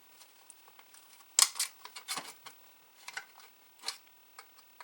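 Parts of an Atari SF354 floppy disk drive being handled during disassembly: a scatter of short clicks and knocks. The loudest comes about a second and a half in.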